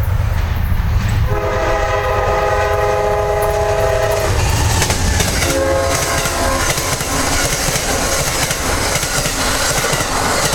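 Amtrak P42DC diesel locomotive sounding its multi-note horn: one long blast of about three seconds, then a shorter one about a second later. The heavy rumble and wheel clatter of the passing train run underneath, growing noisier near the end.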